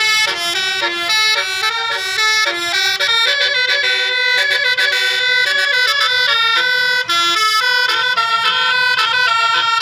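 A bus's telolet horn, a bank of tuned air horns, playing a quick, continuous melody of short notes.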